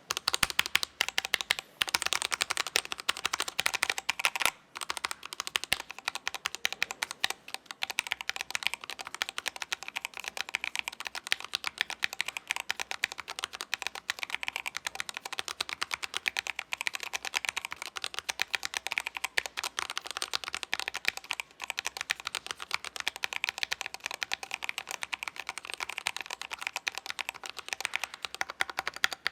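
Fast typing on a Melgeek Mojopad keyboard fitted with stock Gateron Yellow Pro linear switches on an aluminium plate: a dense, continuous run of keystroke clacks with a few brief pauses.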